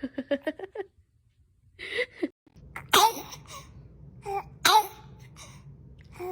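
A baby sneezes twice, about three and four and a half seconds in, each a sharp, high-pitched burst, with small voice sounds between and after. Near the start comes a quick run of short vocal sounds.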